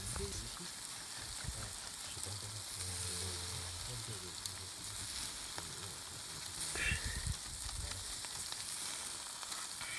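Meat sizzling on a wire grill over charcoal, a steady crackling hiss.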